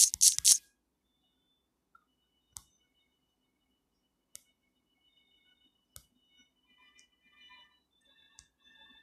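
Fingertips tapping on a smartphone's touchscreen, picked up by the phone's own microphone. A quick run of scratchy taps in the first half-second, then four single sharp taps spaced one to two seconds apart.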